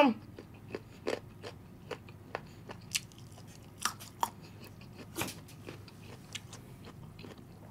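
Close-miked crunchy chewing of a mouthful of Thai-style chicken feet with green mango: a string of irregular, short crunches and clicks, one to three a second.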